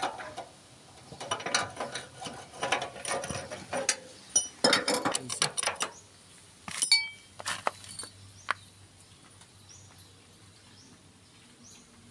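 Irregular metallic clinks, clatter and scraping, a few clinks ringing briefly like struck steel, dying down to quiet after about six seconds.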